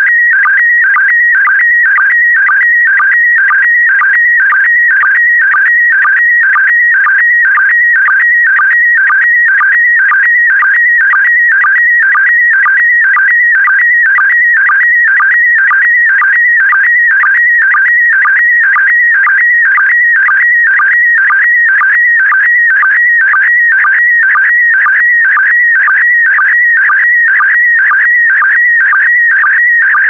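PD120 slow-scan TV (SSTV) signal sending an image: a loud warbling tone between about 1.5 and 2.3 kHz, cut by a short sync pulse about twice a second, one pulse for each pair of picture lines being scanned out.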